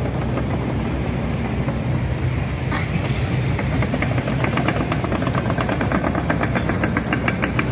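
Heavy construction machine's diesel engine running steadily, joined about halfway through by a rapid, regular metallic clatter, typical of the machine moving on its tracks.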